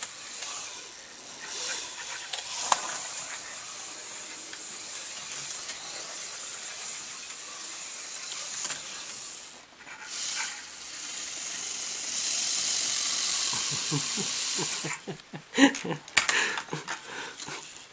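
HO-scale slot car running laps on a plastic track: its small electric motor and gears make a steady high whirring hiss that swells for a few seconds. Near the end it gives way to a run of sharp clicks and knocks.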